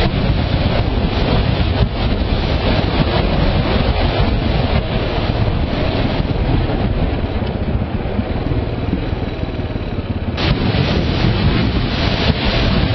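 Wind rushing over the camera microphone on a moving motorcycle, with the bike's engine running underneath. The rush thins a little and then comes back in full about ten seconds in.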